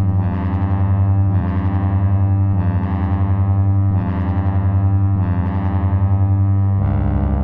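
Slow ambient drone music for sleep: a deep, sustained low hum under soft swells that come back a little more than once a second, shifting to a deeper, fuller drone near the end.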